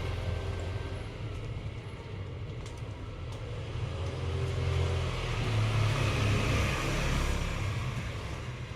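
A motor vehicle's engine running close by with a low steady hum. It grows louder over the middle few seconds and eases off toward the end, like a vehicle passing along the street.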